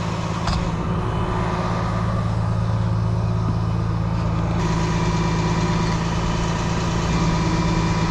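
Heavy truck engine idling steadily.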